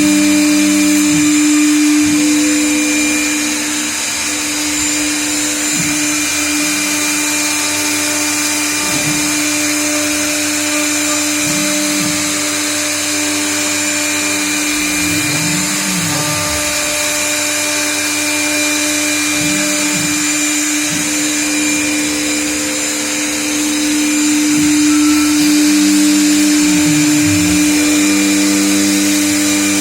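CNC router cutting out letters: the spindle runs with a steady whine over a constant rush of noise. Lower motor tones come and go, gliding up and down several times as the machine moves.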